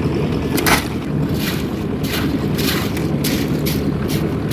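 Engine running steadily with a low rumble, with short scraping sounds repeating about twice a second over it.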